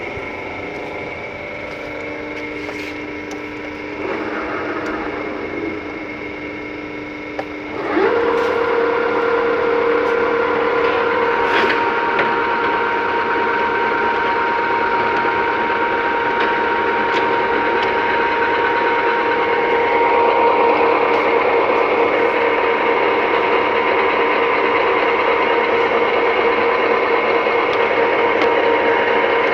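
Large metal lathe (500 mm swing, 2 m bed) running, with a steady geared hum and whine. About eight seconds in it gets louder and its hum moves to a higher pitch, as when the spindle is shifted to a faster speed.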